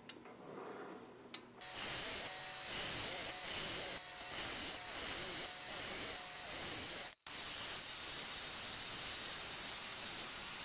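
Grizzly G0750G metal lathe starting up about one and a half seconds in and cutting a forged rebar nut blank, the tool scraping steel as chips come off. The sound cuts out for an instant about seven seconds in.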